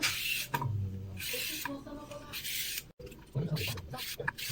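A person's voice, with short noisy rustling or hissing sounds in between; the sound drops out abruptly for a moment just under three seconds in.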